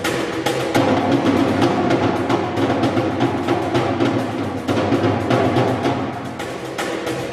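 Drums played in a fast, steady, unbroken rhythm of many strokes.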